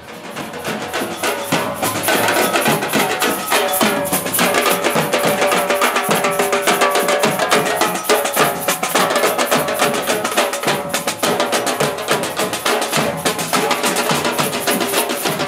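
Percussion group on a carnival float drumming on metal-shelled drums, a dense rhythm of rapid hits that grows louder over the first two seconds as the float comes close.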